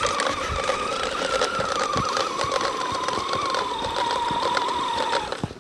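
Electric RC snowmobile running on a Tekin T8 brushless motor: a steady motor and drivetrain whine that slowly drops in pitch, with rapid clicking throughout. The owner puts the clicking down to the studded track running on the drive spool, not a gear grinding. The sound cuts off suddenly near the end.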